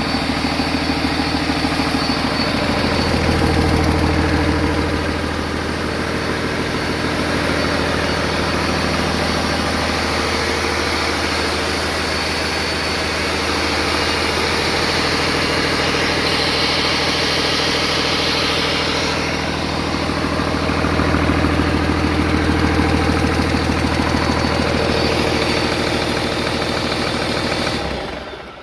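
2007 Cummins ISL 8.9-litre inline-six diesel engine running on a run test, a steady idle that swells louder twice. The sound fades away near the end.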